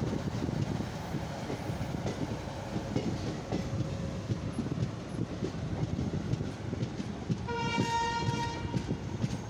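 Indian express train running at speed, heard from the coach doorway: a steady rumble with wheel clatter on the rails. About three-quarters of the way through, a train horn sounds once for a little over a second.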